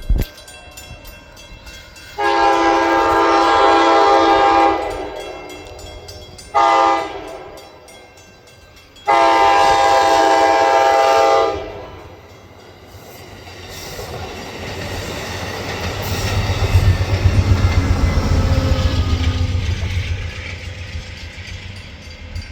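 Train horn sounding a long blast, a short blast and another long blast, then the train passing with a low rumble that builds and fades, its wheels clacking over the rail joints.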